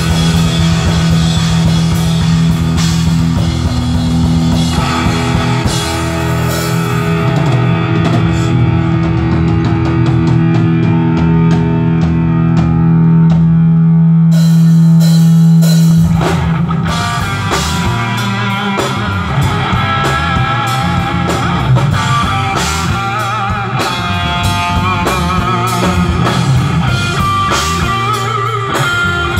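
Live rock band playing an instrumental intro on electric guitar, electric bass and drum kit. A long low note is held through about the first half, then the full band plays on with steady drums.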